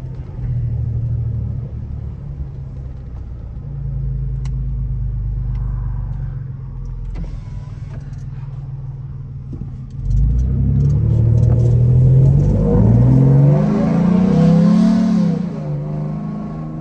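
Ford F-150 pickup's engine and road noise while driving, steady at first; about ten seconds in the engine gets louder and rises in pitch as the truck accelerates, then eases off near the end.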